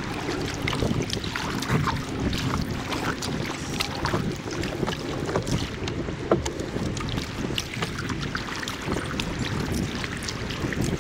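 Kayak paddle strokes in the water, with splashing and dripping from the blades, over wind buffeting the microphone.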